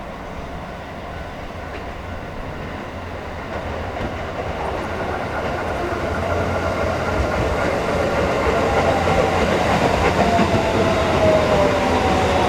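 Shin-Keisei 8800 series electric train approaching and braking, growing steadily louder, with its wheels running on the rails. From about eight seconds in, its Mitsubishi GTO-VVVF inverter whines in several tones that fall in pitch as it slows.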